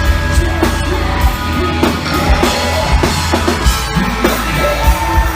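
Rock music: a band with a drum kit and bass playing a steady, loud beat.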